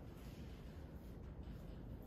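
Faint, steady background noise of a large indoor range: a low rumble with light hiss, and no shot or click.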